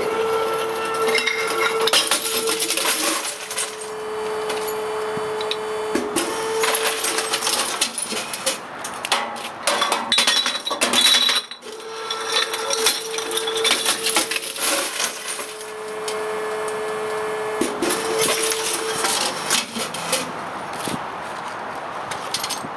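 Lockwood Mammoth recycling compactor crushing glass bottles: a steady motor hum with cracking and clinking of breaking glass. It runs twice, each run several seconds long, with a short break about halfway.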